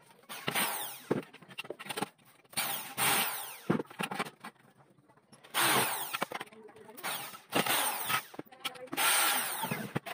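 Electric drill run in several short bursts, drilling into aluminum window profile; each time the trigger is let go the motor's pitch falls as it winds down.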